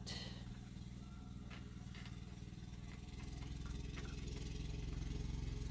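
Go-kart's small engine running faintly and steadily outside the shop, growing a little louder toward the end, with a few faint clicks of tool handling.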